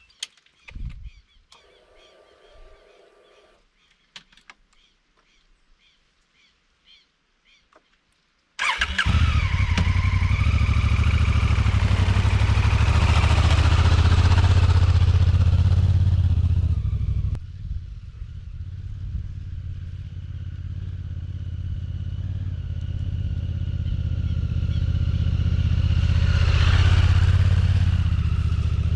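Honda CRF1000L Africa Twin's parallel-twin engine starting suddenly about a third of the way in and running loudly. It then pulls away on the sand track, the engine working harder and getting louder toward the end.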